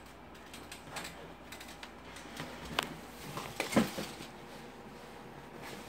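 Scattered light clicks and knocks, the loudest a thump a little under four seconds in.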